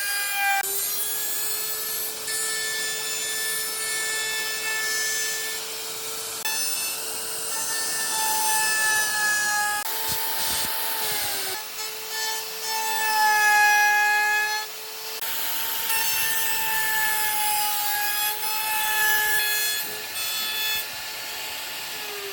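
Electric woodworking machine running with its motor whine held steady, as wood is fed through and cut; the pitch sags briefly a few times under the load of the cut, with bursts of cutting noise.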